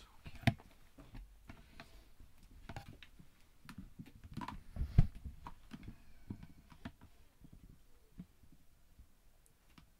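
Scattered clicks, knocks and rustling of handling and movement in a small room, with a sharp knock about half a second in and a louder thump about five seconds in.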